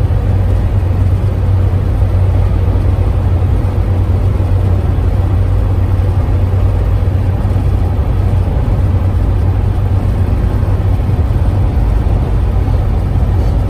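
Box truck cruising at highway speed, heard from inside the cab: a steady low engine drone under constant road and tyre noise.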